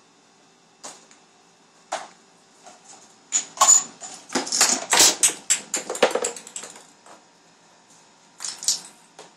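A homemade chain-reaction contraption running: a ball dropping and knocking along popsicle-stick ramps and small pieces clattering and toppling. A few single clicks at first, then a quick run of clicks and knocks through the middle, and a couple more near the end.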